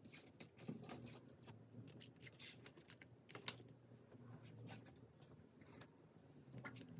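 Soft, irregular clicks and taps of small items and packaging being handled during packing, with one sharper tap about three and a half seconds in. A faint low hum runs underneath.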